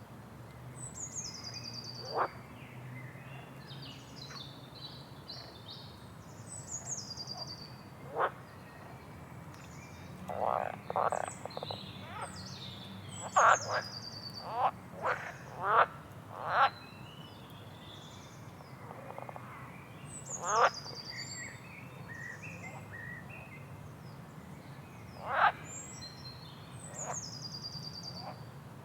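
Rainforest wildlife: birds repeating high whistles that fall in pitch, with about a dozen short, loud calls scattered through, several coming in quick succession around the middle.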